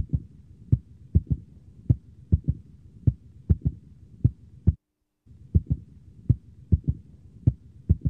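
Fingertips tapping the back of a hand over a microphone held in the palm, mimicking a heartbeat with a third heart sound: low thuds in groups of three (S1, S2 and the extra S3) repeating about once a second. The tapping breaks off for about half a second halfway through.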